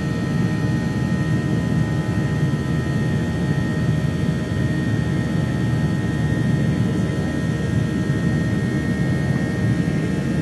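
Jet airliner engines and rushing air during the climb after take-off: a steady low rumble with a thin, steady high whine above it.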